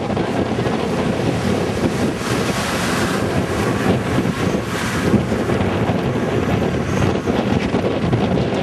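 Wind buffeting the microphone over surf breaking on the beach, with a four-wheel drive's engine running as it drives through soft sand. The noise is steady and loud throughout.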